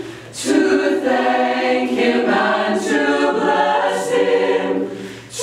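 Mixed choir of young men's and women's voices singing a cappella in harmony, in a stone cellar that gives the voices a lively echo. The singing drops briefly between phrases just after the start and again just before the end.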